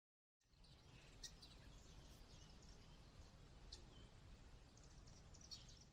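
Very faint outdoor ambience with a few thin, high bird chirps scattered through it, starting about half a second in after dead silence.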